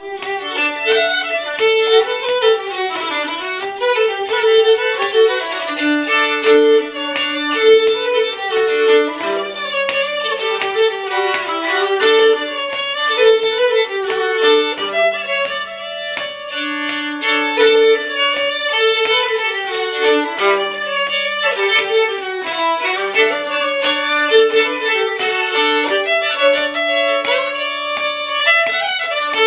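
Two violins playing a scottische dance tune as a duet: a quick, lilting melody over longer held lower notes.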